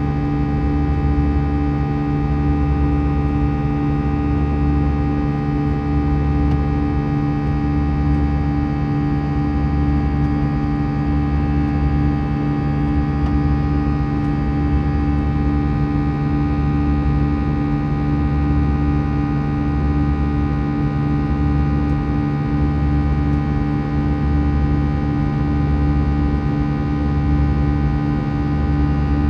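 Airbus A321-211's CFM56-5B turbofan engines at climb thrust, heard in the cabin over the wing: a steady buzzing drone of many fixed tones. Beneath it a low throb swells and fades every couple of seconds.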